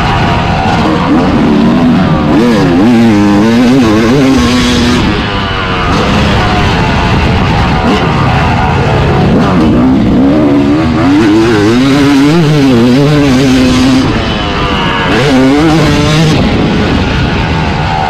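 Yamaha YZ250 two-stroke motocross engine revving hard and repeatedly, its pitch climbing under throttle and falling off between bursts, easing off briefly twice, about five and fourteen seconds in.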